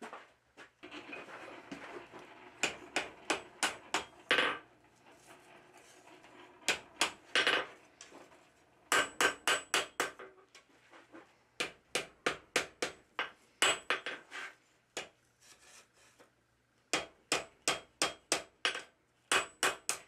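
Hand hammer striking hot thin flat bar on an anvil while it is forged into shape, in quick runs of ringing blows separated by short pauses. A noisy rustling stretch comes before the first blows.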